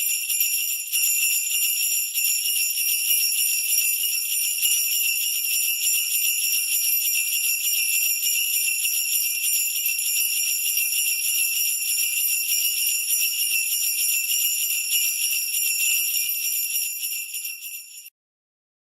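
Sleigh bells shaken in a fast, continuous jingle with bright high ringing. It fades out and stops near the end, leaving silence.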